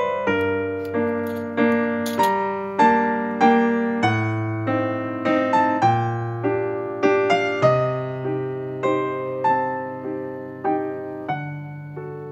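Background piano music: a gentle melody of single struck notes, each fading away, over held bass notes.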